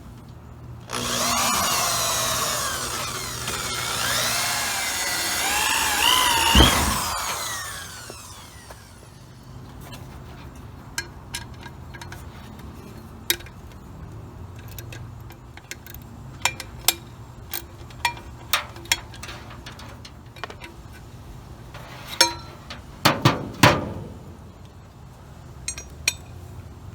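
Power drill driving a large self-tapping screw to mount a horn to the car's body, its motor whine rising and falling in pitch for about six seconds and ending in a sharp hit as the screw seats. Afterwards there are scattered clicks and light taps from handling tools and parts, with a few louder knocks near the end.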